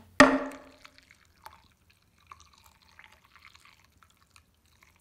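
A single loud, sharp ringing knock just after the start, then a thin stream of hot water poured from a gooseneck kettle into a ceramic matcha bowl, heard as faint trickling and dripping.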